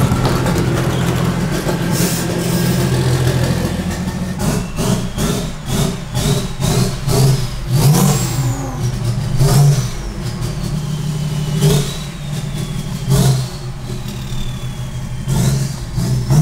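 BMW E39 530d's straight-six diesel engine running as the car moves off. From about four seconds in it is joined by a run of short knocks and several high squeaks that fall slowly in pitch.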